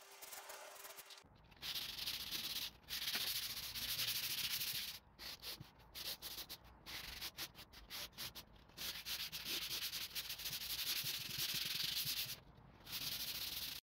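Sandpaper rubbed by hand back and forth over a wooden tabletop, a dry hiss starting a little over a second in. It comes in uneven runs of strokes broken by several short pauses.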